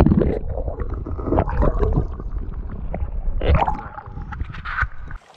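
River water sloshing and gurgling around a camera held underwater, heard as a muffled low rumble with scattered splashes while a smallmouth bass is let go by hand. The sound opens up near the end as the camera comes out of the water.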